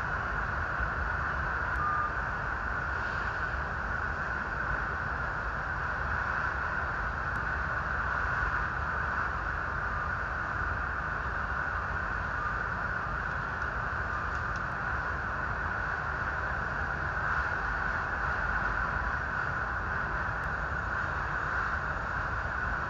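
Steady rushing noise with a low rumble, from fire trucks running and spraying water onto a burning airliner.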